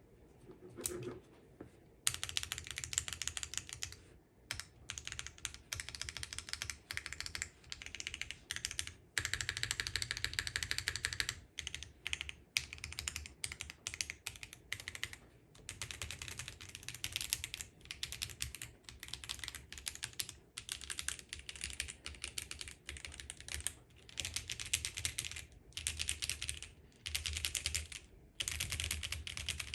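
Typing on a Geon F1-8K mechanical keyboard with lubed Haimu x Geon White tactile switches, GMK keycaps and an aluminium plate: runs of clacking keystrokes in bursts of a few seconds with short pauses between them, beginning about two seconds in.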